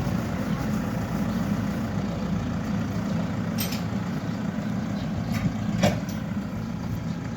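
Hidromek HMK 102S backhoe loader's diesel engine running steadily. A few sharp knocks come over it past the middle, the loudest about six seconds in.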